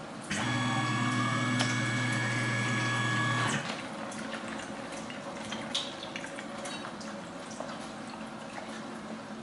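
CNC vertical mill running with a steady multi-pitched whine and coolant flow, which stops about three and a half seconds in. After that, coolant drips and patters with a few light clicks.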